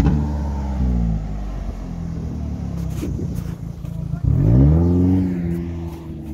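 Kia Sportage's engine revving hard as it drives through deep mud and snow, its pitch rising and falling with the throttle and climbing steeply just after four seconds in before easing off.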